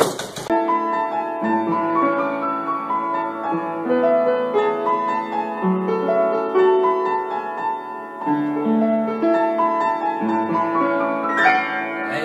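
Piano playing held notes and chords in a slow sequence. It begins about half a second in, just after a noisier sound cuts off.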